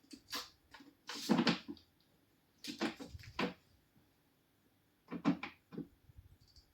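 Several short bursts of knocking and rattling, like a door or cupboard being moved, in four clusters with pauses between them; the loudest comes about a second and a half in.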